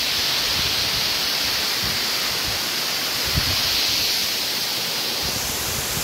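Steady rush of a waterfall heard at close range, with gusts of wind buffeting the microphone underneath.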